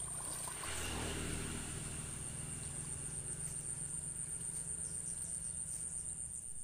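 A steady, high-pitched insect drone over a low rumble, with a brief swish of water about a second in as a fishing net is hauled out of the river.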